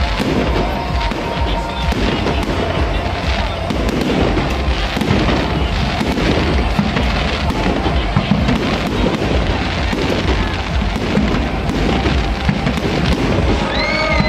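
Fireworks bursting overhead in rapid, overlapping succession: a continuous dense crackle of bangs and pops.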